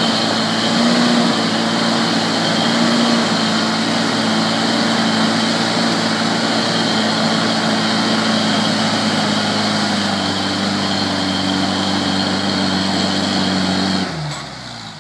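A Toyota pickup's engine running hard and steady under load as the truck climbs a steep dirt slope. About fourteen seconds in, the revs fall away sharply and the sound drops much quieter.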